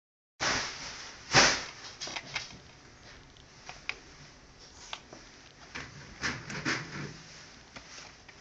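Clicks, taps and rubbing of a plastic DVD case handled by a toddler, with one louder knock about a second and a half in.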